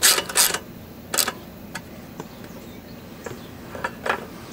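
Socket ratchet wrench clicking as a bolt is turned down: two quick clicks at the start, another about a second in, then a few faint scattered ticks.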